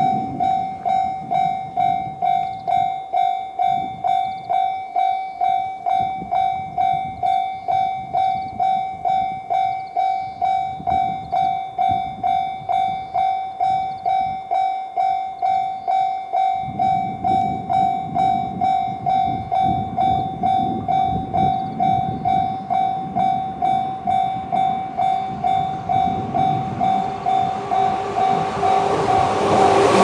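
Japanese railway level-crossing warning bell, the JR standard electronic tone, dinging steadily about one and a half times a second. Over the last few seconds an approaching JR 211-series electric train's running noise swells and becomes the loudest sound as it reaches the crossing.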